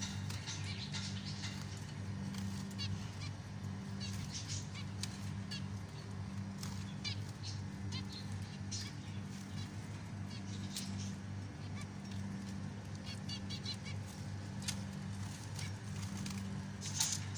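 Zebra finches calling: many short, nasal, honking chirps in quick irregular runs, over a steady low hum.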